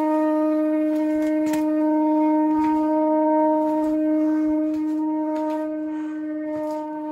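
Space heater making a racket: one loud, steady, horn-like drone held at a single pitch, with a few faint knocks behind it.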